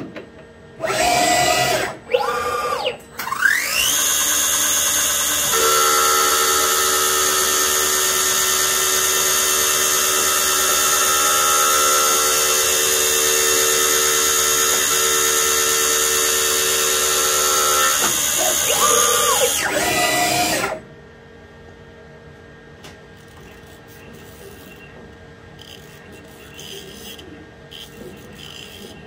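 High-speed milling spindle on a CNC-converted lathe spinning up with a steeply rising whine, then running steadily at high pitch while it cuts a figure-eight oil groove into the turning workpiece, and stopping abruptly about 21 seconds in. Two short loud whirring bursts come just before the spin-up.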